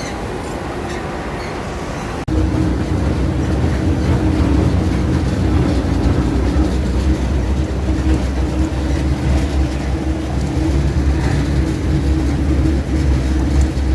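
Large industrial textile-scrap shredder system running under load: a loud, steady mechanical drone with a deep hum. About two seconds in, it abruptly steps up louder and holds there.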